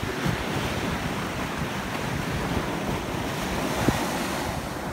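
Surf breaking and washing up the beach, with wind buffeting the microphone; a short knock about four seconds in.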